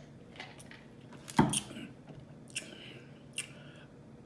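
Close-up eating sounds: chewing, with a few sharp mouth clicks, the loudest about a second and a half in.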